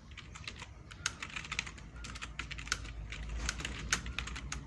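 Computer keyboard being typed on: a quick, uneven run of key clicks as a sentence is typed out.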